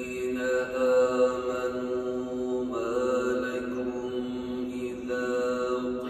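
A male reciter chanting the Qur'an in the slow melodic tilawah style, holding long notes with ornamented turns between them.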